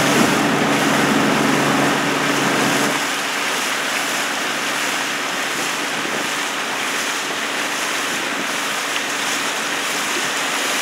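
Steady rush of water and wind noise from a boat moving over flat water, with a low motor hum that drops away about three seconds in.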